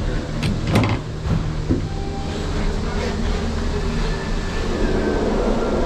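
Silver Queen Gondola station machinery running: a steady low rumble and hum from the haul rope and cabin-handling wheels, with a few sharp knocks in the first second as the cabin is boarded.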